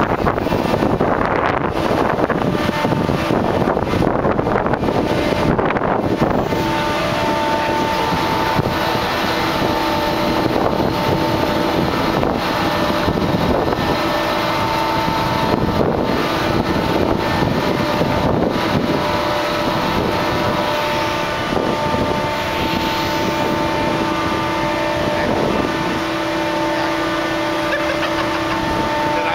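Machinery running steadily with a constant whine over a low rumble, with wind buffeting the microphone for the first several seconds.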